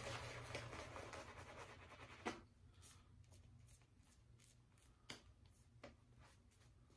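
Faint swishing of a shaving brush working lather over the face and neck, fading out after about two seconds, with a sharp click then and a few soft ticks later on.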